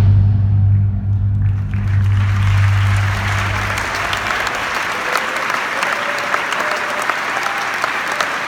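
Audience applauding, the clapping building up over the first seconds and then holding steady. Under it, a deep final note of the show music holds and cuts off about four seconds in.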